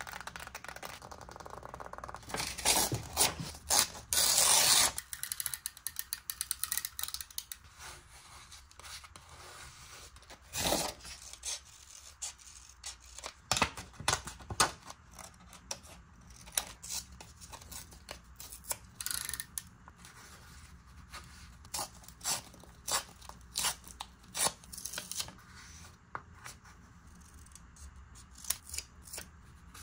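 Paper and stationery handled close to the microphone while decorating a journal. A dense, loud stretch of paper noise runs from about two to five seconds in, then come scattered short snips, clicks and scrapes.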